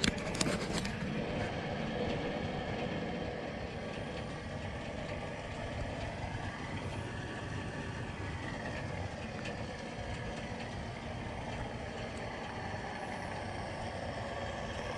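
Steady low rumble of vehicle engines running, without words.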